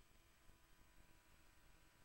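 Near silence: only a faint, steady hiss with a few thin steady tones.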